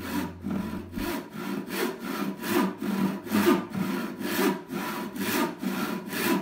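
Handsaw ripping lengthwise down into the end of a softwood 2x4 (resawing), in a steady rhythm of push and pull strokes, about two a second.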